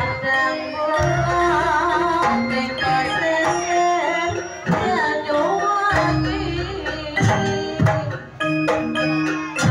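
Live Javanese jaranan gamelan music: kendang hand drums beating under a wavering, ornamented melody line, with held low tones beneath.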